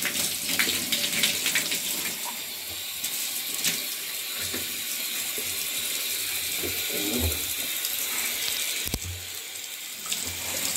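Water running steadily from a bathtub tap into the tub, with scattered clicks and knocks, one sharper knock near the end.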